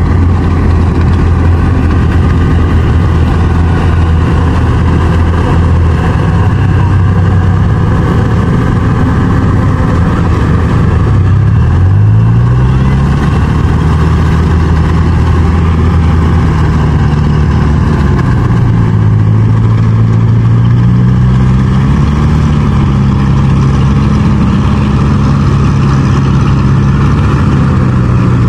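Yanmar rice combine harvester running while it cuts and threshes rice; its diesel engine drones loudly and steadily. The engine pitch rises sharply about twelve seconds in, then dips and climbs again a little later.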